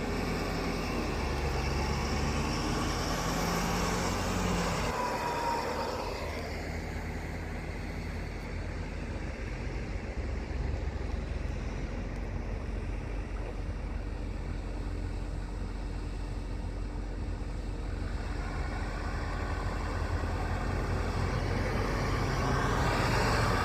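Engines and road noise of emergency vehicles, an ambulance and a fire department unit, driving by, growing louder over the last five seconds or so.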